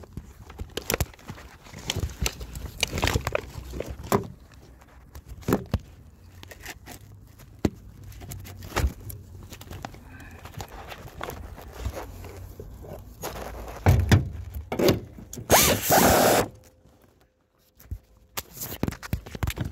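Metal tools clicking, knocking and scraping at irregular intervals while the top nut of a rear shock absorber is worked loose, its shaft held with locking pliers. A loud rustling scrape lasts about a second near the end, then the sound drops out briefly.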